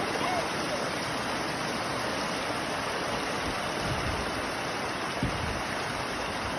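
Water gushing out through a cut in the side of an above-ground frame pool, a steady rushing splash as it pours onto the dirt below.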